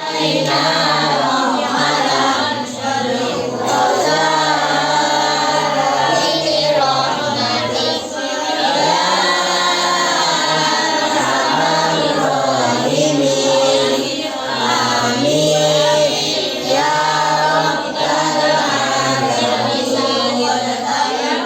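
A group of children chanting a Quran recitation in unison, many voices in a sung melody with long, drawn-out notes.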